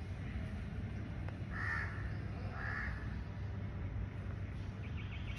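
A crow cawing twice, about a second apart, over a steady low rumble.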